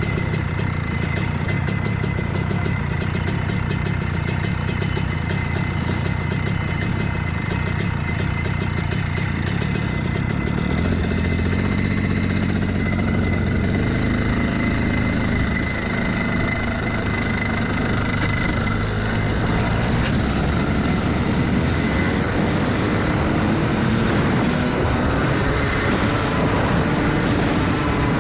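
Rotax Max Evo 125cc single-cylinder two-stroke kart engine idling, then revving as the kart pulls away at low speed about a third of the way in. In the last third it revs up hard as the kart accelerates.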